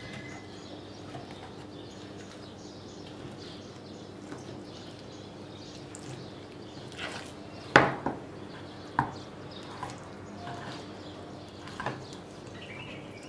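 Kitchen knife working through raw ribs on a wooden cutting board, with a few sharp knocks of knife and bone against the board. The loudest knock comes about eight seconds in, and a few lighter ones follow.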